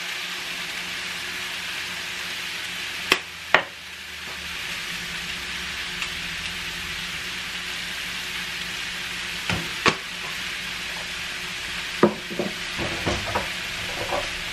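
Shrimp sizzling steadily in a frying pan over a gas flame, with a few sharp clicks and knocks cutting in: a pair about three seconds in, another pair near ten seconds, and a cluster near the end.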